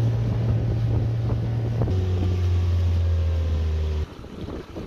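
Small outboard motor on an inflatable dinghy running at a steady speed. Its hum steps down in pitch about two seconds in and cuts off suddenly about four seconds in.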